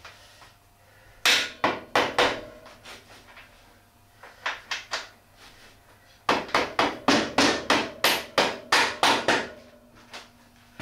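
Mallet tapping the rear axle spindle through the wheel hub of a Triumph Scrambler 1200: three sharp blows about a second in, a few lighter taps, then a quick run of about a dozen blows, roughly four a second.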